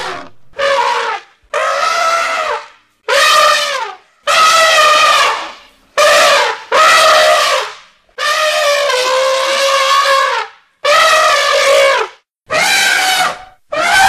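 Elephant trumpeting: a series of about ten loud, pitched calls, each lasting half a second to two seconds, with short gaps between them.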